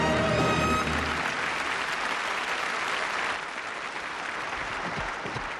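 The closing held chord of the music ends about a second in, giving way to an audience applauding, the applause slowly fading.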